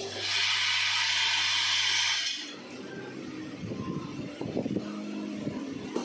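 Vibratory bowl feeder running: a steady electric hum under a loud hiss of small parts rattling in the steel bowl. Both cut off together about two and a half seconds in, leaving quieter machine clatter and clicks.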